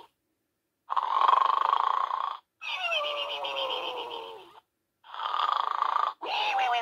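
Snoring pig soft toy playing its snore twice: each time a buzzy, rattling in-breath snore and then a long whistle falling in pitch on the out-breath. The sound cuts to silence between the parts.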